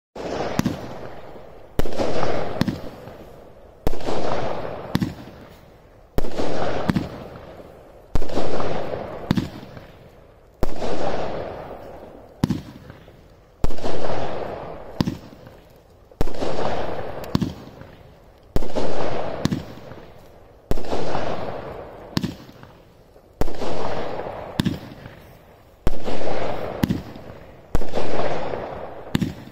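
Johnathan's Fireworks 'Blue Prince' firework cake firing a steady sequence of shots, about one every two to two and a half seconds. Each shot is a sharp bang with a fainter thump close after, then a tail that fades over a second or so.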